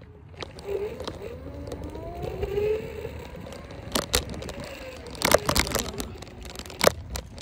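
Electric scooter rolling over rough, cracked asphalt: a steady low rumble of the small wheels, with several sharp knocks as they hit cracks and bumps, a cluster of them just past the middle and one more near the end.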